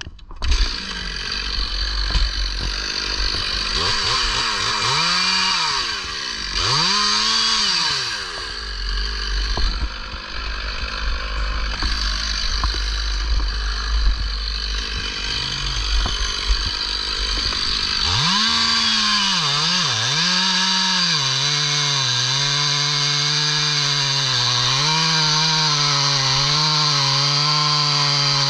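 Stihl MS 500i chainsaw running at the base of a walnut trunk. It revs up and down a few times, then settles into a sustained cut, its engine pitch wavering and dipping as the chain bites into the wood.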